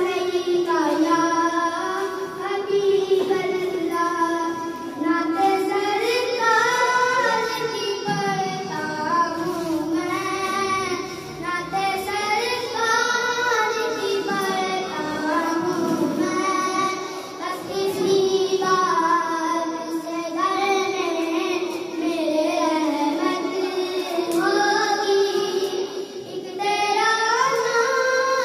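A boy singing a naat, a devotional poem in praise of the Prophet, solo and unaccompanied into a microphone, in long drawn-out melodic phrases with short breaths between them.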